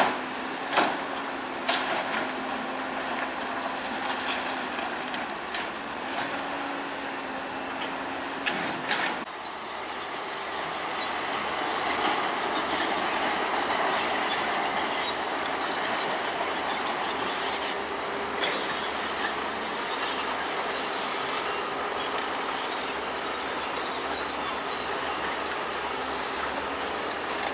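Crawler bulldozer working: engine running under load with the steel tracks clanking and squealing. Several sharp metallic clanks come in the first part; after about nine seconds the sound shifts to a steadier grinding run, with a thin high squeal near the end.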